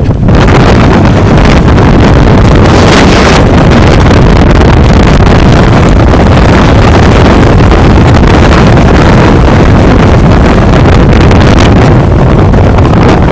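Storm wind blasting the microphone near a tornado: a loud, continuous rush of wind noise at the limit of the recording, with no letup.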